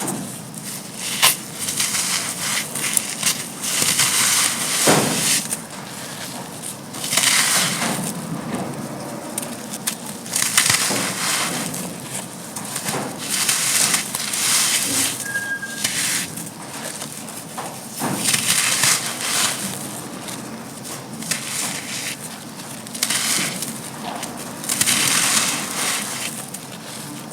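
Dry, gritty black sand-and-cement chunks crumbling and crackling in irregular bursts that come every second or two, a crisp gritty crunch.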